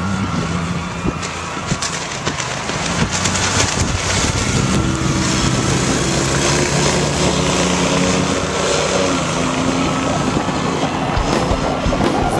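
Gheenoe's mud motor running at high speed as the boat passes by.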